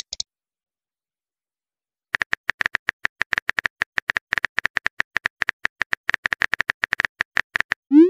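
Texting-app keyboard typing sound effect: a quick run of key clicks from about two seconds in until near the end, where a short rising swoop begins.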